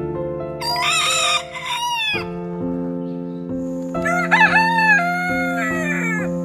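Rooster crowing once, starting about half a second in, then a second crowing call about four seconds in, over background music of steady sustained notes.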